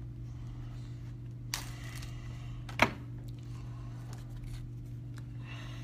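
Steady low hum of a small room, with two sharp clicks, one about a second and a half in and a louder one just under three seconds in.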